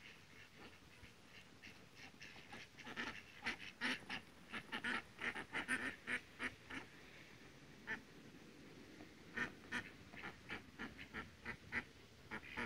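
A small flock of ducks quacking in quick runs of short calls, busiest from a few seconds in to about seven seconds, and again near the end.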